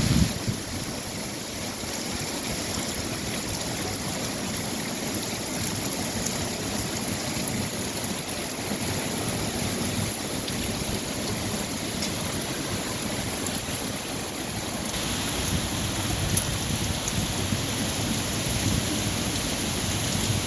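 Steady rain falling, a continuous hiss of drops, which grows a little louder and brighter about fifteen seconds in.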